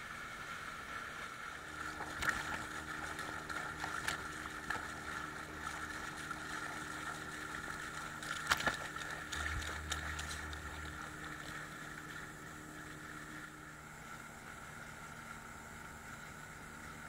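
Small boat's outboard motor running steadily, heard with water rushing past the hull close to the microphone. There are a few sharp knocks about two, four and eight and a half seconds in.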